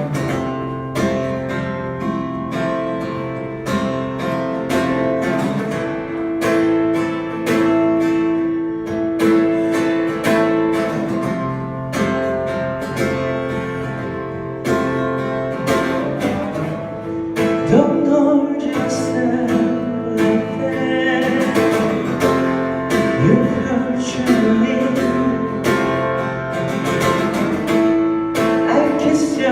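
Acoustic guitar strummed and picked, playing a song's intro with ringing chords.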